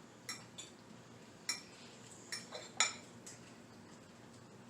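Cutlery clinking against a plate while eating: a handful of sharp, irregular clinks, the loudest about three seconds in.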